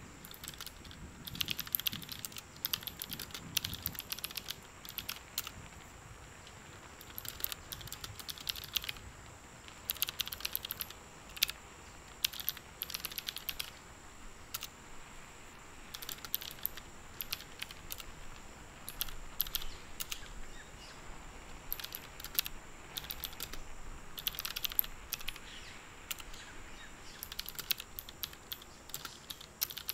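Typing on a computer keyboard: bursts of rapid keystrokes with short pauses between them, as terminal commands are entered. A faint steady high-pitched whine runs underneath.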